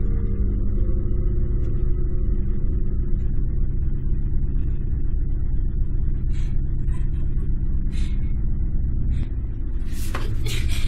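Steady low rumbling drone with a few faint clicks, broken about 10 seconds in by a sudden loud burst of noise.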